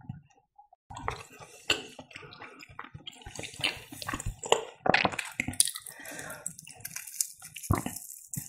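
Close-miked crackles and wet clicks from handling food, growing into a denser, higher crackle near the end as a breadcrumb-coated fried cheese patty is picked up and gripped.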